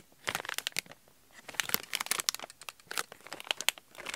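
Plastic packaging bag crinkling in three bursts of handling.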